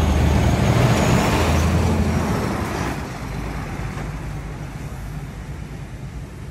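A large motor vehicle driving past on the road, its engine drone loudest in the first two to three seconds and then fading away.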